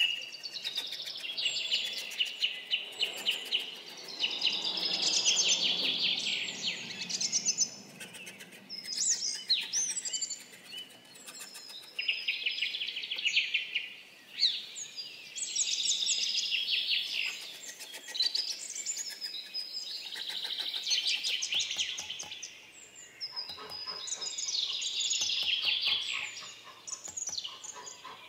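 Small songbirds singing almost without a break, with fast trills and chirping whistles that sweep up and down in pitch. A light, regular tapping runs underneath in the last few seconds.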